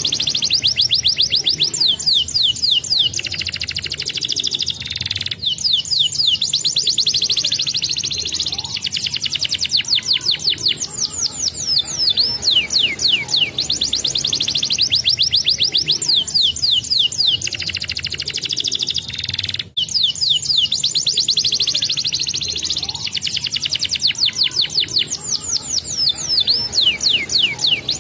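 Domestic canary singing: long rolling trills of fast, falling whistled notes, about ten to a second, in unbroken phrases that cut off abruptly twice.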